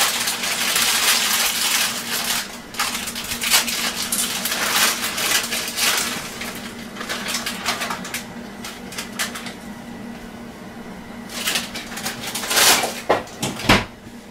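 Kitchen handling noise: a dense rustle with many small clicks and clinks, easing off about halfway through, then a few sharper clicks near the end, over a steady low hum.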